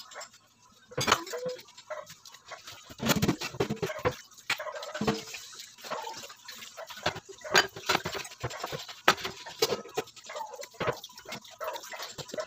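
Hands handling ground pork filling and rolling it in cabbage leaves on a plastic cutting board: irregular soft taps, clicks and wet squelches.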